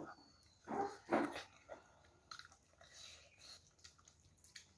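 Close-up chewing and lip-smacking of a mouthful of chicken and rice eaten by hand, with two louder mouth sounds about a second in, then a run of small wet clicks.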